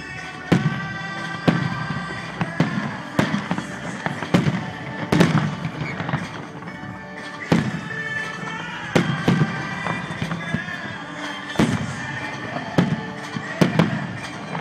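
Aerial firework shells bursting, a string of sharp bangs roughly once a second, each with a short low rumble after it, over music that plays throughout.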